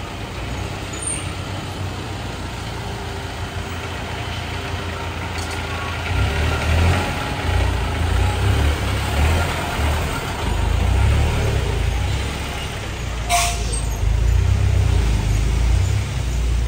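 Street noise with motor traffic: a steady low rumble of vehicles that swells in waves from about six seconds in, with one sharp short sound about two-thirds of the way through.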